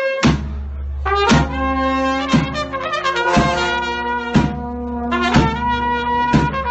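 Balkan brass band (trubači) playing live: a trumpet melody over tenor horns, with a strong beat about once a second. A low, sustained bass comes in just after the start.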